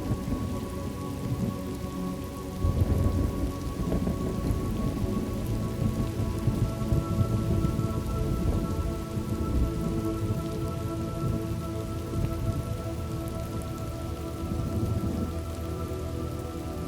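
Thunderstorm ambience: steady rain with low rolling thunder that swells about three seconds in and rumbles on, under soft held music tones.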